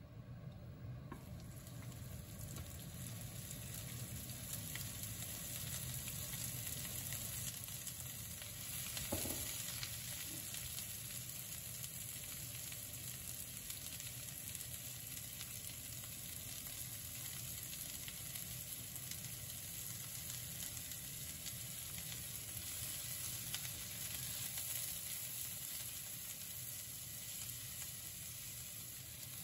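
Sliced onions sizzling steadily in hot olive oil in a frying pan, the sizzle starting about a second in as they hit the oil, with a spatula stirring them near the end.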